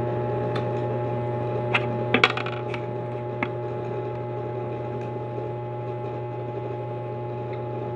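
A steady low hum, with a few sharp clicks and a short clinking clatter about two seconds in.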